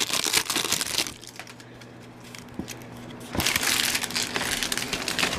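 Baseball card pack wrapper being torn open and crinkled by hand. The crackling comes in two spells, and the second, starting about three seconds in, is the louder.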